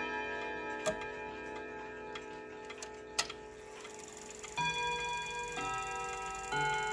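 Jauch triple-chime wall clock playing its chime melody: struck notes ring on and die away through a pause of about four seconds, with two sharp clicks from the movement, then the hammers strike new notes again about two-thirds of the way in.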